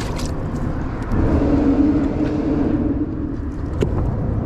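Steady rumble of road traffic on the bridge overhead, with one vehicle passing louder and humming for about two seconds. A single sharp knock comes near the end.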